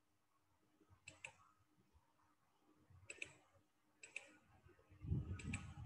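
Faint clicks, mostly in close pairs, every second or so over near-silent room tone of a video call, with a brief low muffled rumble about five seconds in.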